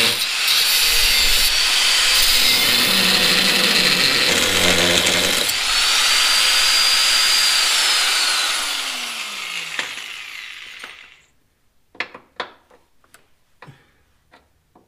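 Angle grinder with a cutoff disc cutting through a seized leaf-spring hanger bolt that only spins when turned. It runs loud and steady, then from about eight seconds in the motor winds down with a falling whine and stops near eleven seconds. A few light metal clicks and taps follow.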